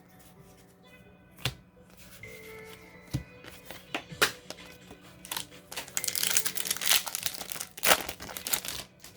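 Foil booster pack wrapper being crinkled and torn open, with scattered sharp crackles first and the loudest, densest crinkling in the last three seconds. Faint background music plays underneath.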